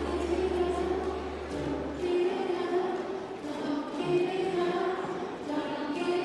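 A large group of children singing a pop song together, with a low held bass note underneath that stops about two seconds in.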